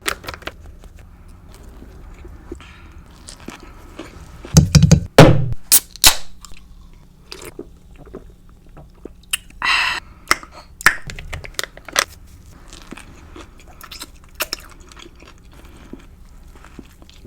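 Close-miked biting and chewing of a grilled chicken sandwich on a pretzel bun: moist mouth clicks and smacks, with the loudest bites clustered about four to six seconds in and again around ten seconds.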